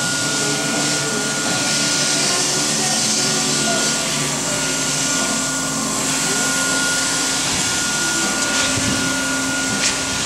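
Steady drone of a motor-driven machine with a constant high whine running through it, and a single sharp click near the end.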